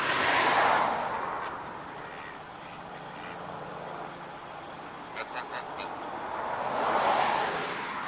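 Two vehicles passing by, the first swelling and fading about half a second in, the second near seven seconds in, over a steady outdoor hiss, with a few faint short clicks in between.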